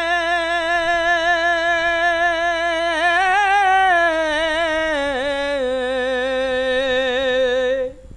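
A male voice singing an unaccompanied Bengali Islamic gojol, holding one long note with vibrato. The pitch lifts briefly about three seconds in, then falls to a lower note that holds until it stops just before the end.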